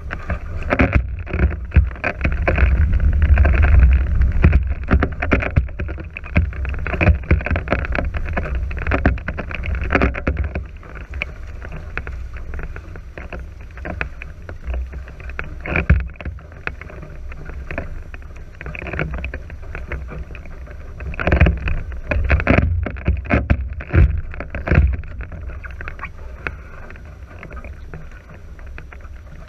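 Wind buffeting the camera microphone over the steady rush and splash of a NACRA 5.0 catamaran's hulls cutting through the water under sail, with frequent short splashes.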